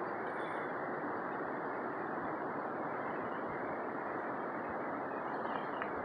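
Steady outdoor background rush, even and unchanging, with no distinct events.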